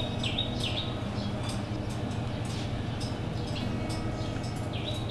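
A steady low hum of room noise, with short high chirps repeated several times a second, like a small bird chirping, at the very start and again near the end.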